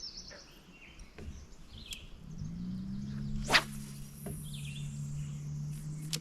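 A fishing rod whooshes in a cast about halfway through, followed by the line hissing off the spinning reel, falling in pitch as the lure flies out. Birds chirp throughout, and a low steady hum starts a second before the cast.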